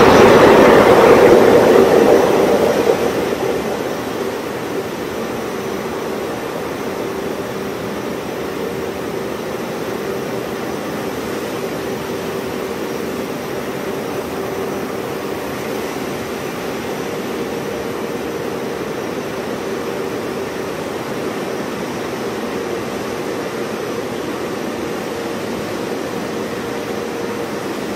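Automatic tunnel car wash running: a steady rush of water spray and spinning cloth brushes over a constant machinery hum. It is louder for the first few seconds, then settles to an even level.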